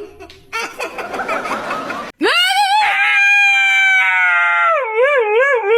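A dog howling: one long, high, held howl that rises at the start, holds steady, then wavers up and down near the end. Before it comes about a second and a half of noise.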